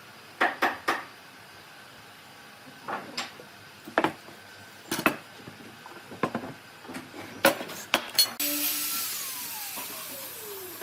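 Workshop knocks as wooden pieces are handled and set down, about ten separate clacks spread over several seconds. Near the end a steady hiss starts suddenly, with a faint tone sliding down in pitch under it.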